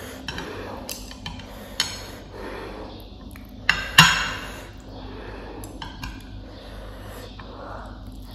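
Chopsticks knocking and scraping against a ceramic plate while noodles are picked up, with a few sharp clinks; the loudest, about four seconds in, rings briefly.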